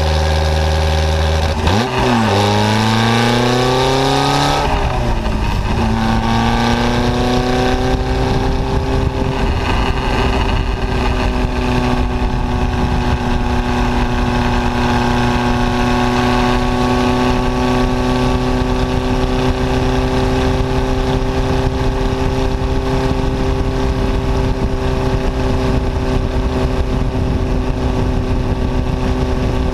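Formula Junior single-seater's engine heard onboard: it dips, then revs climb twice with a gear change between, and from about six seconds in it runs at a steady engine speed. Wind and road noise run beneath.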